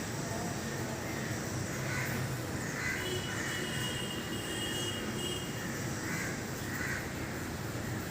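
A few short bird calls, typical of crows cawing, over a steady low background rumble, with a thin high squeak held for about two seconds in the middle.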